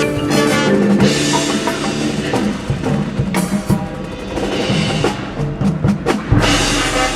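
Marching band playing, with the drum line's snare and bass drums striking prominently over sustained wind chords and a heavy low drum hit about six seconds in.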